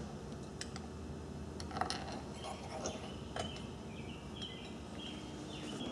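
Faint scattered clicks and taps of a metal tool being worked at the end cap of an electric trolling motor, with faint high chirps in the background.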